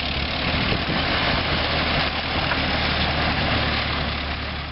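The 1918 Nash Quad truck's original 28.9 hp four-cylinder engine runs steadily as the truck drives. The sound grows slightly fainter near the end as the truck moves away.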